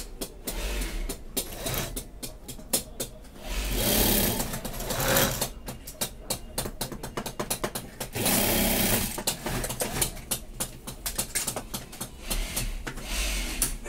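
Sewing machine stitching surgical face masks: a fast run of needle ticks, with louder spells of running about four seconds in, about eight seconds in and near the end.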